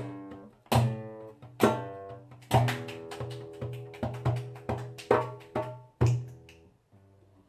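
Live folk music: a plucked string instrument struck with sharp, percussive attacks, each chord ringing and fading, together with hand percussion. The playing thins out and fades about six seconds in.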